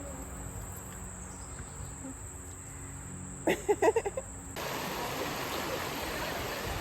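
A steady high-pitched insect drone, broken by a brief cluster of loud short sounds about three and a half seconds in. About a second later it cuts sharply to the steady rush of flowing water at the falls.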